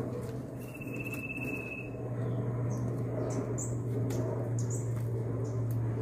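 Hands handling and tying a Philodendron Paraiso stem to a coir moss pole, with faint rustles and clicks, over a steady low hum. A steady high whistle sounds about a second in for just over a second, then several short high chirps follow.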